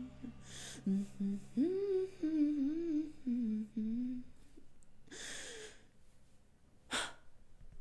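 A solo voice humming a wordless, wavering melody for about three seconds, then a breathy sigh and a short sharp noise near the end.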